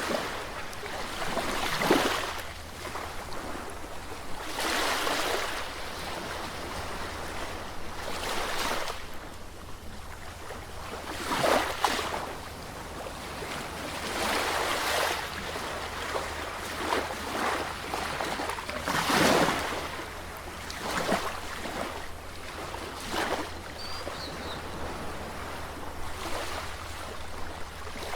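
Sea waves washing in, each surge swelling up and fading away every few seconds, over a steady low rumble.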